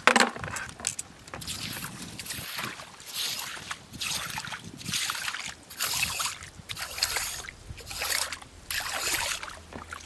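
Rubber boots wading through a shallow muddy puddle, the water sloshing with each step about once a second, with one sharp knock right at the start.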